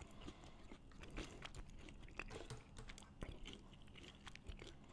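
Small plastic spoon scraping chicken salad from the inside of a tin can, making faint scattered clicks and scrapes.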